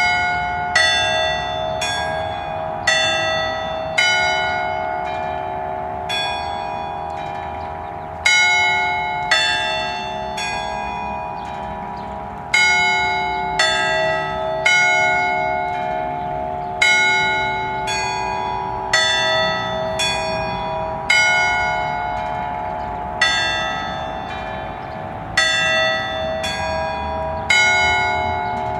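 Concerto of nine church bells tuned in A (eight plus one semitone bell), cast by the Capanni foundry, rung in Bolognese 'allegrezza' style. The bells are swung on their wheels, with strokes about a second apart and a few longer pauses, over the lasting hum of the bells still sounding.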